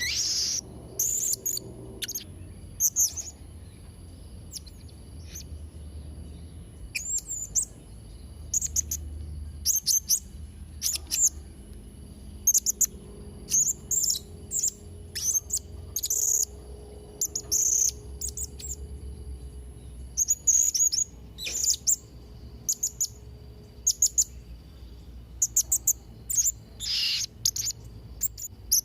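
Blue-crowned hanging parrot (serindit) calling in rapid, high-pitched chirps and short trills that come in irregular clusters all through, a bird singing freely in the 'trotol' style. A faint steady high whine runs underneath.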